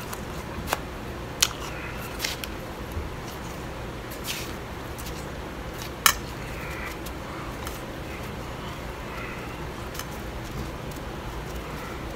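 Crisp crunching and clicking as blended bag ice is eaten with a spoon from a bowl. A few sharp snaps come in the first couple of seconds and the loudest comes about six seconds in, with fainter crackle between, over a steady low hum.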